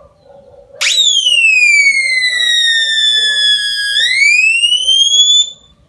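Home-built electronic police siren circuit sounding when its button is pressed: one tone jumps up sharply about a second in, glides slowly down, then sweeps back up before cutting off.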